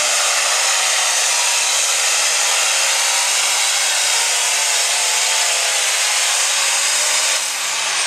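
Heavy super stock pulling tractor's turbocharged engine running at full power under load as it pulls the sled, a loud, steady high whine. About seven and a half seconds in the level dips and the pitch falls as the engine is throttled back at the end of the pull.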